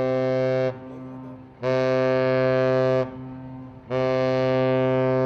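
Ship's horn sounding three blasts of one steady tone, each a second or so long, about a second apart.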